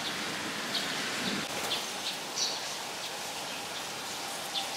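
Steady rain falling, with a few short bird chirps now and then.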